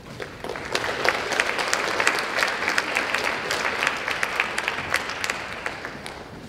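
Audience applauding, building up about half a second in and tapering off near the end.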